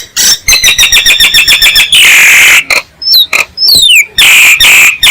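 Myna calling: rapid runs of short chattering notes, a harsh rasping call about two seconds in and another near the end, with a few quick whistles sliding downward between them. It is a lure call of the kind used to attract mynas.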